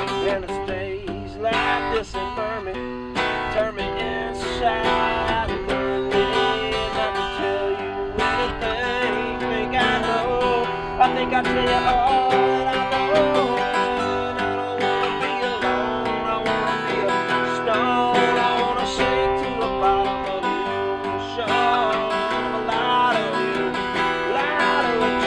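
Acoustic guitars strumming and picking a song.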